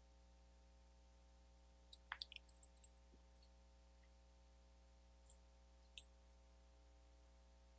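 Faint, sharp clicks over a steady electrical hum: a quick cluster of about seven clicks about two seconds in, then two or three more around five to six seconds in.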